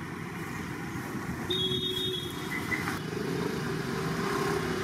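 Street traffic: cars and motorcycles running past on a city road, a steady noise of engines and tyres, with a brief tonal sound about a second and a half in.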